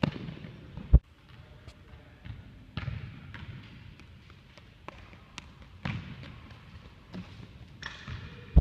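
Scattered sharp knocks and thuds echoing around a large gymnasium with a hardwood floor, with a loud thud about a second in and another at the very end.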